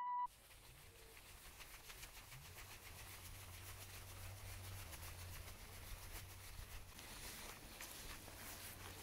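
Faint rustling with small crackles: footsteps through grass, then a wood campfire crackling, its crackles a little stronger near the end. A low rumble, likely camera handling, sits underneath.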